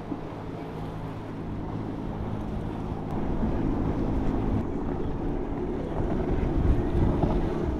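Outboard engines of center-console boats running at speed, a steady engine hum mixed with the rush of spray off the hull and wind on the microphone. The sound gets louder about three seconds in as another boat passes.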